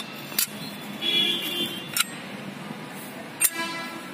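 Steel clutch plates of a Carraro transmission clutch pack clinking against each other and the clutch drum as they are set in place. There are a few sharp metallic clicks, and twice the metal rings on briefly.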